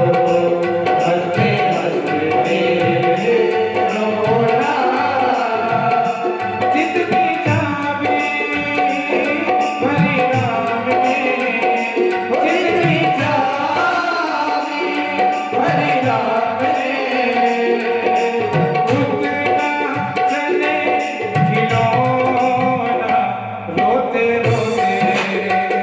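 Devotional bhajan music with tabla drumming a steady rhythm under a melodic accompaniment.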